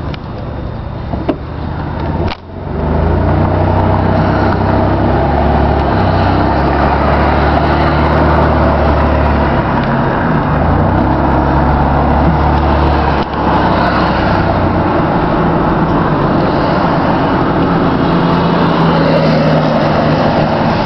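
Car interior noise while driving at city speed: a steady low engine hum under road and tyre noise, heard from inside the cabin. The hum briefly drops about two seconds in and its note shifts a couple of times around halfway.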